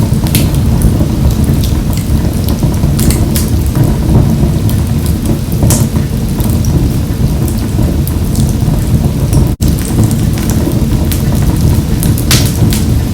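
Wood fire burning in a wood-burning stove: a steady low rumble of flames with frequent sharp crackles and pops. The sound cuts out for a split second about ten seconds in.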